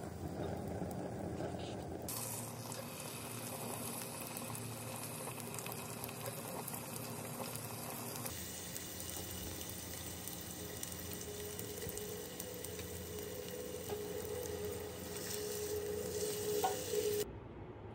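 Butter sizzling and foaming in a pot, then thin slices of beef frying in it. The sizzle changes abruptly twice and cuts off near the end.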